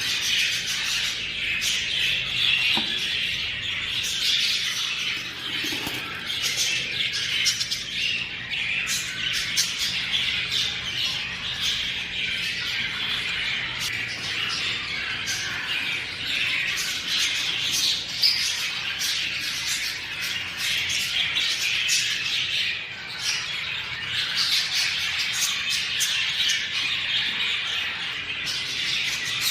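A flock of budgerigars chattering and squawking together in a dense, unbroken chorus of short calls.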